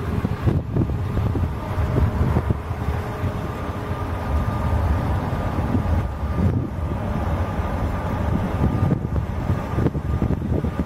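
Airliner's jet engines on approach: a steady low rumble with a faint steady whine, and wind buffeting the microphone.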